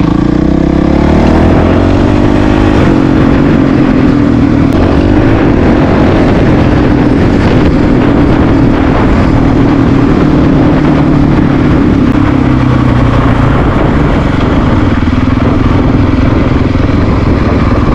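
Honda CRF450RL's single-cylinder four-stroke engine running on the move. Its pitch rises over the first second or two, then holds steady.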